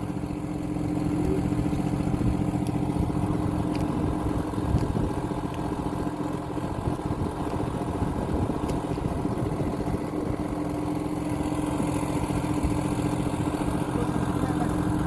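Fishing boat's engine running steadily at low speed: a constant droning hum.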